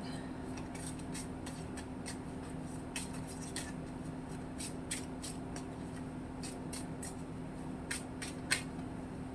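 Tarot cards being shuffled and handled: a scatter of soft, irregular flicks and clicks, the sharpest about eight and a half seconds in, over a faint steady hum.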